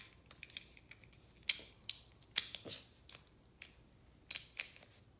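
Faint, irregular clicks and taps of a Beyblade's plastic and metal parts being handled and snapped back together after its tip came off.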